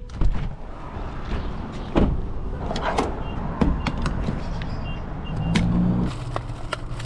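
Car door latch clicking open, then a series of clicks and clunks from a gas-station fuel nozzle being handled in the car's filler neck while refuelling.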